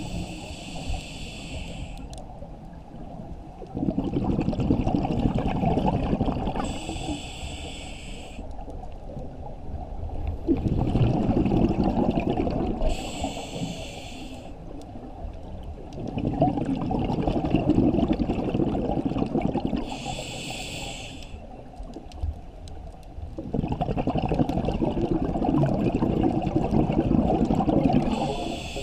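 Scuba diver breathing through a demand regulator underwater: a short hissing inhale, then a long burst of bubbling exhaust, repeating about every six to seven seconds.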